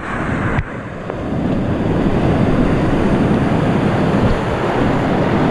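Ocean surf washing and breaking, with wind buffeting the microphone; the noise dips suddenly about half a second in, then builds back up.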